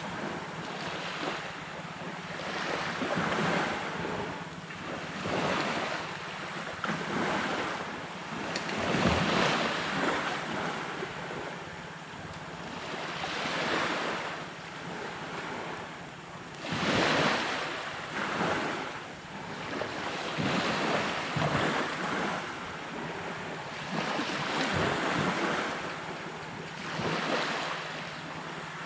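Sea waves breaking and washing up on a sandy beach, swelling and fading every few seconds, with the biggest surges about nine and seventeen seconds in. Wind buffets the microphone.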